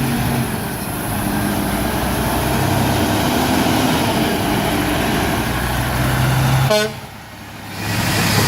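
Semi truck's air horn sounding a few short blasts and then a longer one over the rumble of passing traffic. The sound drops away abruptly near seven seconds in, and the traffic noise returns about a second later.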